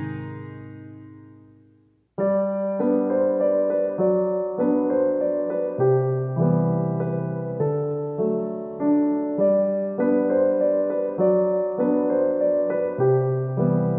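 Background music: a strummed guitar chord rings out and fades to silence, then a gentle electric piano tune starts about two seconds in and plays on in even steps.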